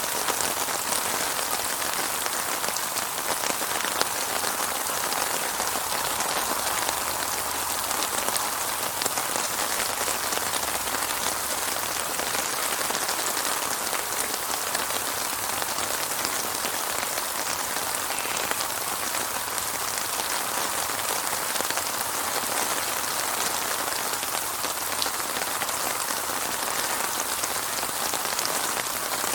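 Steady rain falling on a surface, a constant hiss of pattering drops with fine individual drop ticks and no thunder.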